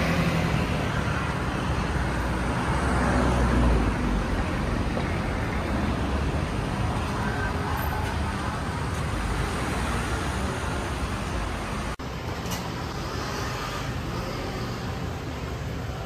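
City street traffic noise: a steady rush of passing cars and scooters that swells about three to four seconds in. An abrupt cut about twelve seconds in gives way to a quieter ambience with a few clicks.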